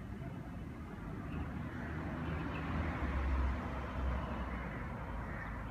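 Passing road traffic: the rumble and tyre noise of a vehicle swelling to a peak about three seconds in, then fading.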